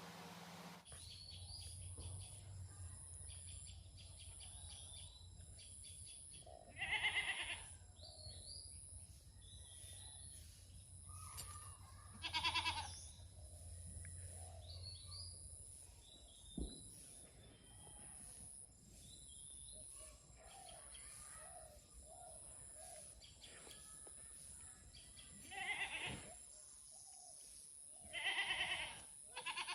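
A goat bleating four times, each call about a second long, over a faint steady high-pitched drone.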